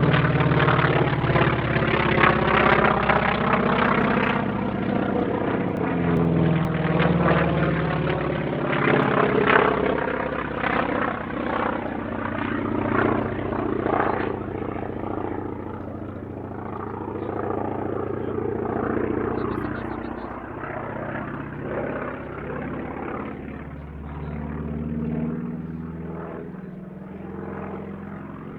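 North American T-28 Trojan's radial piston engine and propeller droning in flight. The note is loud at first, shifts in pitch, and fades gradually as the aircraft moves away.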